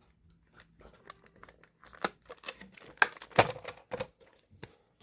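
Scattered clicks and rustles of product packaging being handled as a small collectible figure is worked out of its box, growing busier about two seconds in.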